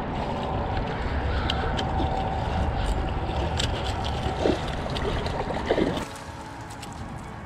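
A hooked snook splashing at the surface while the angler works a spinning reel, with scattered sharp clicks, over heavy wind rumble on the microphone. About six seconds in the sound drops sharply quieter.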